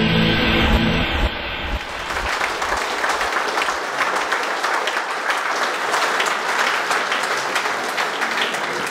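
An audience clapping and applauding, a dense even patter of many hands, rising in over the last of the intro music in the first second or so and easing slightly near the end.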